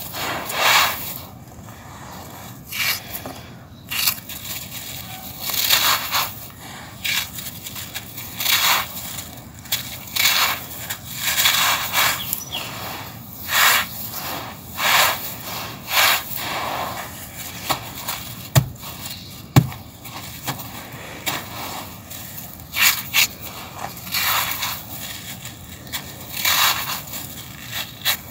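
Handfuls of dry coarse sand scooped up and poured back through the fingers onto a concrete floor, with dry sand lumps crumbled by hand: a series of short gritty rustling pours, about one every second or two. Two sharp ticks a second apart stand out about two-thirds of the way through.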